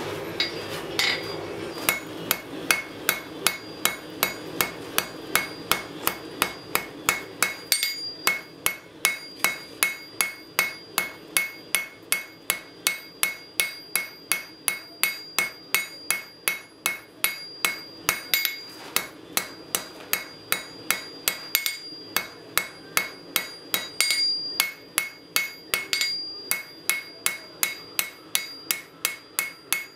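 Hand hammer striking a red-hot steel bar on an anvil in a steady rhythm of about two to three blows a second, each blow with a bright metallic ring from the anvil. The blows start about two seconds in and pause briefly a few times.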